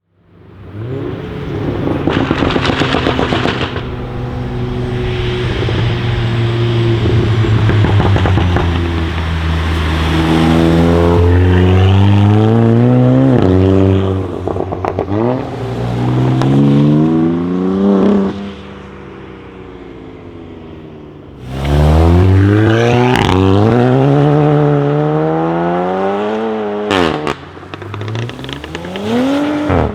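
Tuned Volkswagen Golf 7 R's turbocharged four-cylinder engine, first held at steady revs, then accelerating hard through several gears, its rising note stepping down at each shift. After a quieter lull it pulls away loudly again about two-thirds in, with a few sharp exhaust pops.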